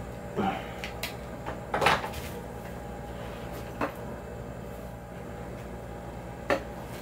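Handling noise as a Bell Custom 500 open-face motorcycle helmet and sunglasses are taken off: a few separate knocks and rustles, the loudest about two seconds in, over a steady low hum.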